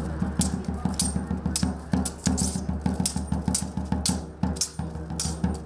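Background music with a pulsing beat and sharp percussive hits.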